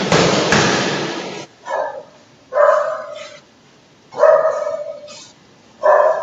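A loud, sudden burst of noise lasting over a second, then a dog barking four times at a steady pace, about one bark every second and a half.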